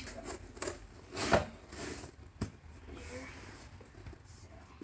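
Cardboard box being handled and its flaps folded shut: scattered rustles and scrapes of cardboard, loudest about a second in, with a sharp tap a little later.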